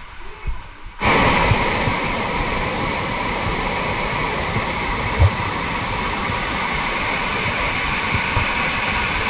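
Mountain stream water rushing over rocks: a steady, loud hiss of flowing water that comes in suddenly about a second in. A single low thump is heard near the middle.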